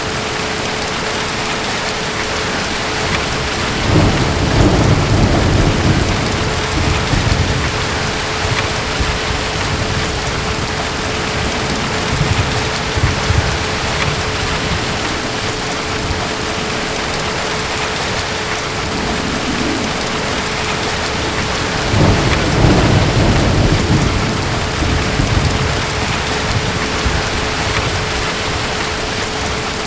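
Steady heavy rain with two low rolls of distant thunder, one about four seconds in and another about twenty-two seconds in, each rumbling for a few seconds.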